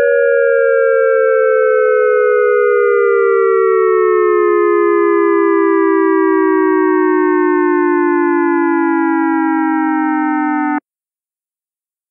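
ASC digital electronic siren controller's synthesized dual-tone siren sounding the end of its 'Fire' signal: two close tones falling slowly in pitch together with a regular pulsing wobble. The tones cut off suddenly about eleven seconds in.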